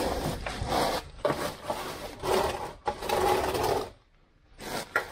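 Scraping and rustling in several short bursts as a mechanic shifts about under a car and handles the plastic undertray and tools, with a brief quiet gap near the end.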